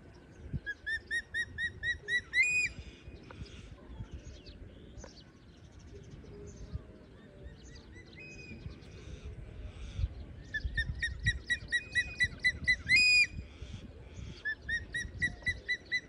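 A bird calling in three bouts of short rising whistled notes, about four a second, each bout ending in one longer, higher note, over a low rumble.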